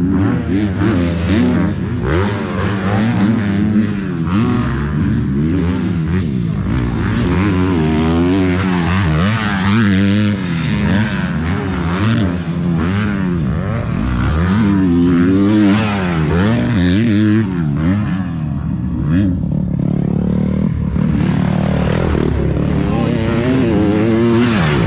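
Several Kawasaki motocross dirt bike engines running at once, their pitch rising and falling again and again as the bikes are revved and ridden through the gears.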